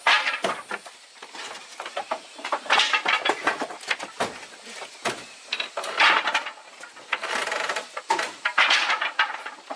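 Irregular clatter, knocks and scraping of hard objects being handled, in quick uneven succession.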